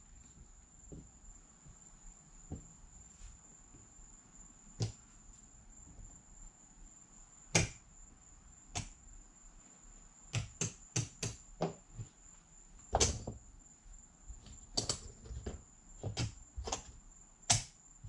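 Casino chips and dice handled on a felt craps table: scattered sharp clicks, a few in the first half and a busy run of them in the second half. A faint steady high-pitched tone runs underneath.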